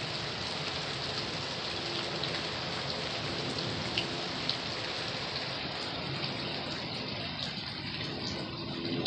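Steady rain falling on a surface, with scattered drop ticks; the hiss thins out in the last couple of seconds.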